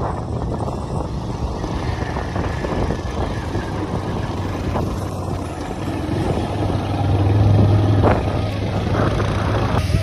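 Motorcycle engine running while riding, with wind and road noise. The engine's steady hum grows louder about seven seconds in.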